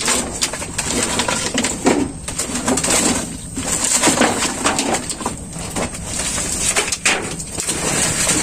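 Irregular clattering, knocking and scraping of loose old wooden planks and roofing debris being pulled and shifted by hand.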